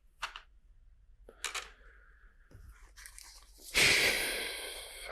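Loose plastic LEGO pieces being handled: a few small clicks, then a louder rustling crunch just under four seconds in that fades away over about a second and a half.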